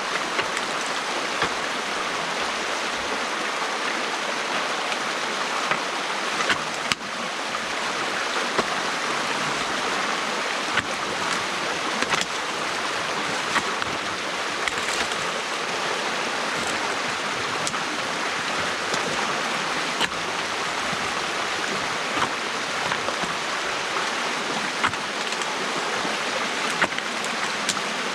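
Water rushing steadily through a gap opened in a beaver dam, with scattered brief clicks throughout.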